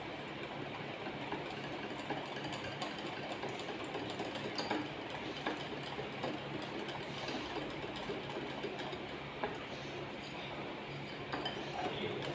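Wire whisk beating mango cake batter in a glass bowl, the wires clinking rapidly and unevenly against the glass.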